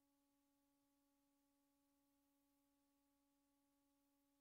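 Near silence: only a very faint steady hum and hiss, with no sound of the demolition.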